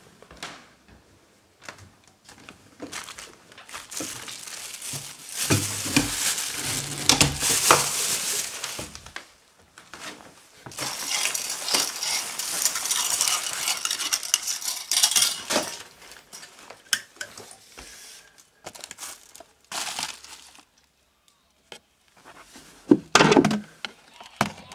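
Kitchen clatter of dishes and cutlery, in two long spells of clinking and rattling, then a loud knock near the end.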